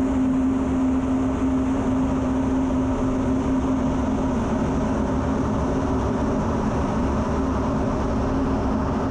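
F-16 cockpit noise in flight: a steady roar of engine and rushing air with a steady low hum.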